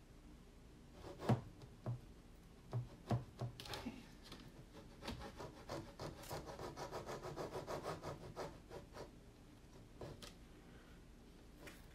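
Fingertip rubbing chalk paste over a silkscreen transfer on a craft board: a few light taps first, then quick back-and-forth rubbing strokes, several a second, for a few seconds in the middle.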